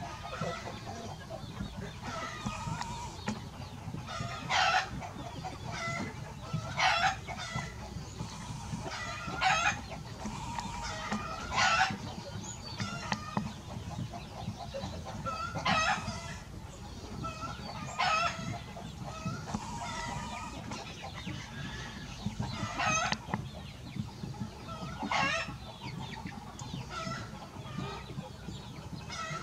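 Chickens clucking, with a short, loud call every two to three seconds.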